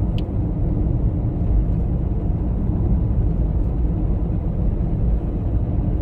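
Steady low rumble of a moving car, road and engine noise heard from inside the cabin.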